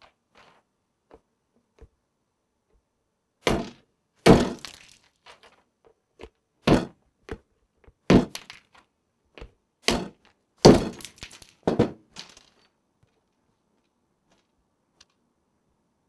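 Claw hammer striking a walnut on an iPad screen covered with shock-absorbing protector film, cracking the shell. There are about seven hard blows between about three and a half and twelve seconds in, with smaller taps and cracks between them.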